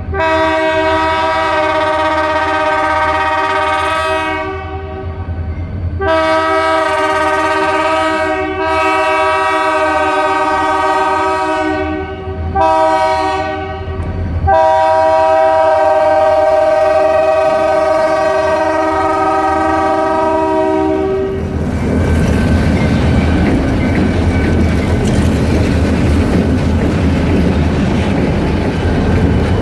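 Diesel locomotive multi-note air horn blowing five blasts, the last held about seven seconds. It then falls silent as the train goes by with heavy engine rumble and wheel noise on the rails.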